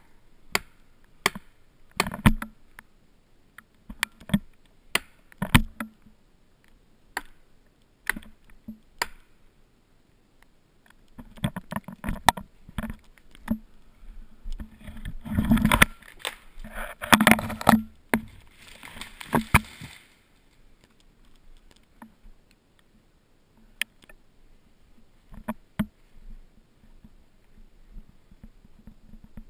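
A string of sharp knocks about once a second, then a felled tree crashing down through neighbouring branches and into the snow, with heavy thumps loudest around fifteen to eighteen seconds in. Only scattered small snaps and cracks follow.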